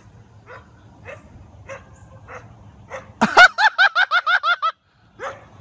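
Small dog barking: faint barks about every half second, then about three seconds in, a loud fast run of about ten high yips.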